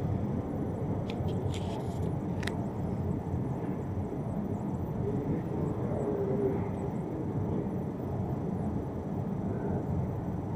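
Steady low rumble of a long escalator running down a deep underground station shaft, with a few light clicks about one to two seconds in.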